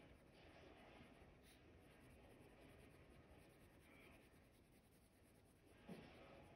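Faint scratchy rubbing of a Prismacolor coloured pencil shading on paper in short back-and-forth strokes, with a brief soft knock about six seconds in.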